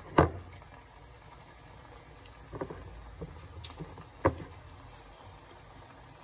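Hot oil sizzling steadily as egg-battered tortilla pieces fry in a pan, with a few sharp knocks; the loudest come just after the start and about four seconds in.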